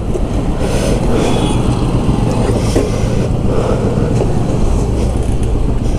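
Motorcycle engine running steadily under way, with road and wind noise.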